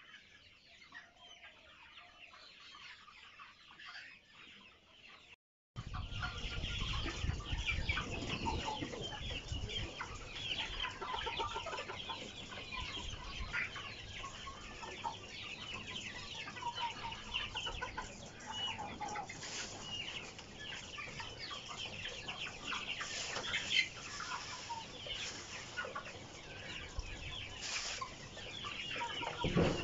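A large flock of tiger chickens clucking and calling over one another in a busy, continuous chatter. It is faint for the first five seconds, then comes in loud and abruptly. A single knock sounds near the end.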